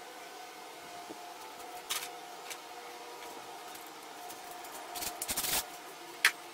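Old wooden boards knocked and shifted on a folding workbench: a few light clicks, then a cluster of wooden knocks about five seconds in and one sharp click near the end, over a steady faint hum.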